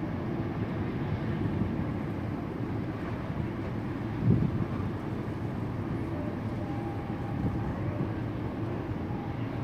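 Steady low rumble of a large Corsica Ferries car ferry's engines as it manoeuvres, with a gust of wind buffeting the microphone about four seconds in.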